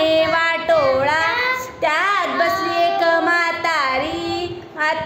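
A small child singing or chanting a nursery rhyme in a high voice, the pitch sliding up and down in drawn-out notes, with a short break near the end.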